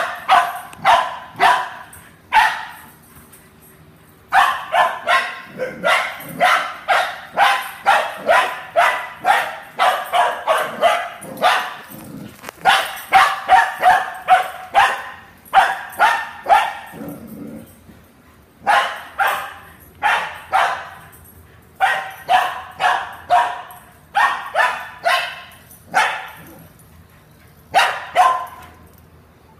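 A young dog barking in fast runs of short, sharp, high barks, about two a second, with brief pauses between the runs.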